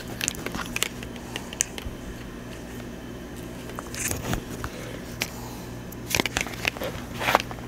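Scattered small clicks and rustles of things being handled on a tabletop, busier about four seconds in and again near the end, over a steady low hum.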